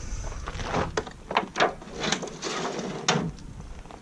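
Handling sounds: a run of light clicks and knocks with some rustling as the raw turkey, on its metal hanging hooks, is lifted out of an aluminium foil pan.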